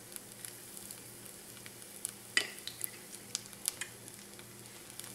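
Fritter batter frying in hot vegetable oil in a pan: a steady sizzle with scattered crackles and pops, and one sharper click about two and a half seconds in.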